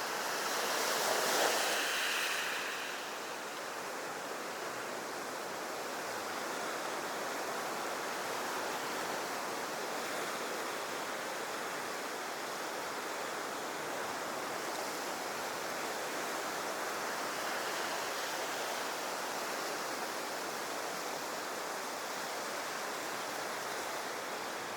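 Ocean surf washing on a beach as a steady rushing noise, with a louder surge in the first couple of seconds.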